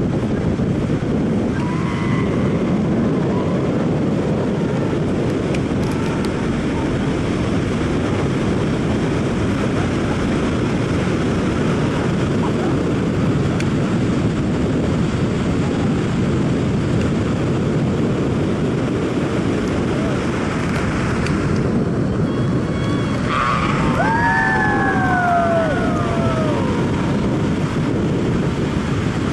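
Steady rushing noise of wind on the microphone over a whitewater river far below. About 23 seconds in, a voice lets out a few rising-and-falling whoops.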